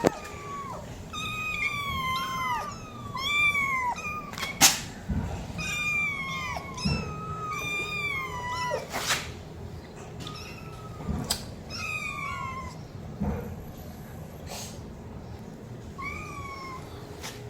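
A cat meowing over and over, short high-pitched meows that each fall in pitch, sometimes in quick runs of two or three. A few sharp clicks come between the meows, the loudest about four and a half seconds in.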